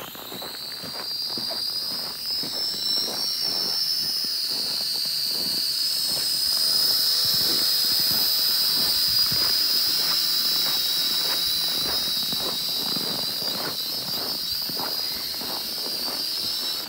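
Small toy quadcopter drone's motors and propellers whining, a high steady pitch that wavers slightly with the throttle, growing louder over the first few seconds as it flies close.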